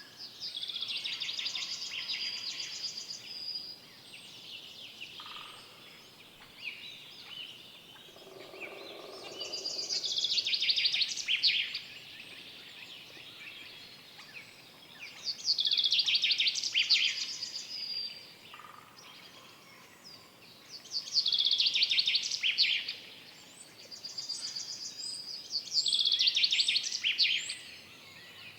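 Forest songbird singing the same short song phrase of rapid notes five times, each phrase about two to three seconds long and several seconds apart, with fainter birdsong between and a brief lower call about eight seconds in.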